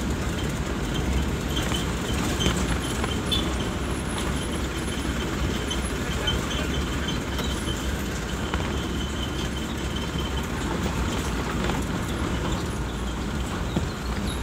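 Engine and road noise of a moving truck heard from inside the cab, a steady low rumble.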